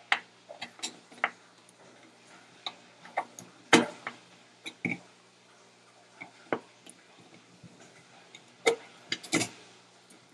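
Small flathead screwdriver working a mounting screw out of an old thermostat's base plate: irregular clicks and ticks of the blade in the screw slot and against the metal and plastic, the loudest about four seconds in and twice near the end.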